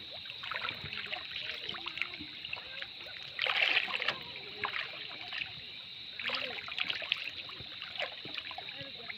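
River water splashing and dripping as a hook line is hauled hand over hand out of the water by a man wading in it. The loudest splash comes about three and a half seconds in, with smaller splashes later.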